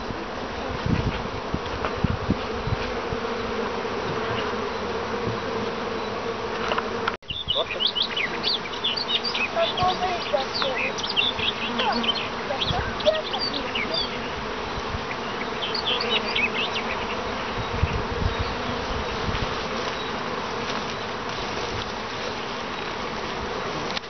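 Honeybees buzzing steadily in a dense swarm around open hives and their entrances. The sound drops out for a moment about seven seconds in, and after that a scatter of short, high chirps sounds over the buzz for several seconds.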